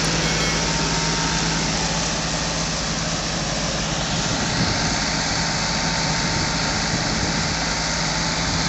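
John Deere 5055E tractor's three-cylinder turbo-diesel running steadily under load, driving a Sonalika wheat thresher. The thresher's drum and blower add an even rushing noise over the engine's hum.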